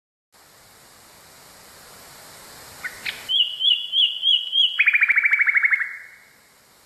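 Nightingale singing one phrase: five repeated slurred whistles, then a fast trill of about a dozen notes at roughly ten a second, slightly falling in pitch, over faint recording hiss.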